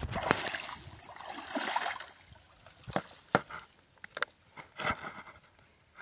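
Muddy water splashing and sloshing as a person wades and drags a net tool through a shallow canal. After that comes a short run of sharp slaps and taps as small fish are handled in a plastic basin.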